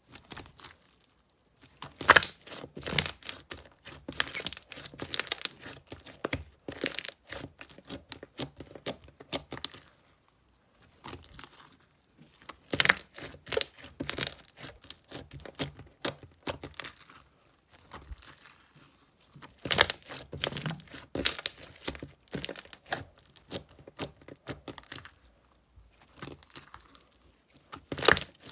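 Slime being squeezed and pressed by hand, giving dense runs of crackling and popping clicks that stop briefly a few times.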